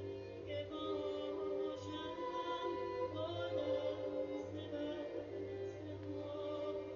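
A woman singing a slow, ornamented Persian classical vocal line, with wavering trills on the melody. A small string ensemble of violins and cello holds sustained notes beneath her.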